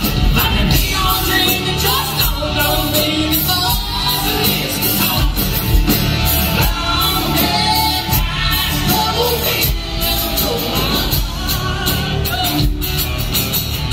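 Live country-rock band playing on a club stage: drums, bass, and electric and acoustic guitars, heard through the PA in a large hall.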